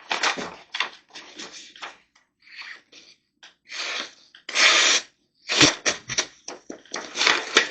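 Steel knife blade drawn in short strokes down the ceramic rods of a triangle sharpener: a run of irregular scraping strokes, one longer and louder about halfway through.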